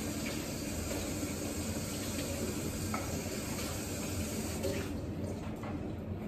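A steady rushing noise with a low hum, and a few faint clicks of dishes at the table.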